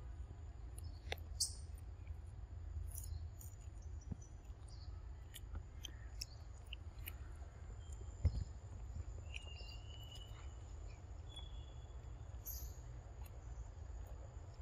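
Faint forest ambience: a steady high insect drone with a few short bird chirps, over a low rumble. Scattered light clicks, and one sharp thump about eight seconds in.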